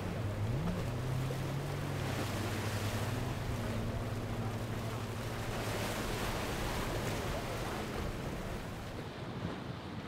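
A motorboat engine running, its pitch dipping and rising in the first second, then holding steady and fading near the end. Waves wash and wind buffets the microphone throughout.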